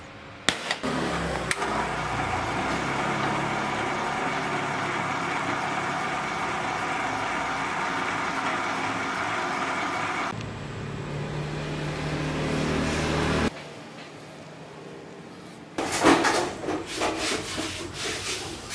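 A sharp metal strike, then a drill bit cutting through a steel plate: a steady run with a held machining tone for about ten seconds, changing to a lower tone for a few seconds before it stops. After a short lull come a run of metallic clanks and knocks.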